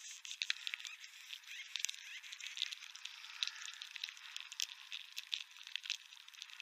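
Dense, irregular clicking and crackling over a steady hiss. Thin and high, with no low end.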